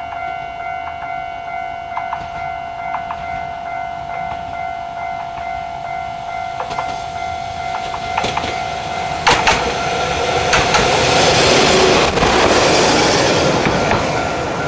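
Single-car diesel railbus approaching on jointed track, its wheels clicking over rail joints. It gets louder and passes close by about ten seconds in, with a loud rush of engine and wheel noise, then fades. A steady high-pitched drone runs underneath throughout.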